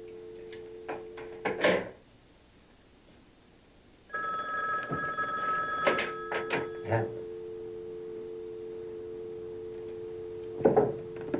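Telephone dial tone, a steady two-note hum, heard from a black desk phone's handset. The hook switch clacks about two seconds in and the line goes quiet, then a higher steady tone comes on with a few clicks before the dial tone returns. Near the end the handset clunks down into its cradle.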